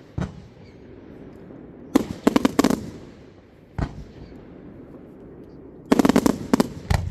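Fireworks going off: two volleys of several sharp bangs in quick succession, about two seconds in and again near the end, with single booms between them.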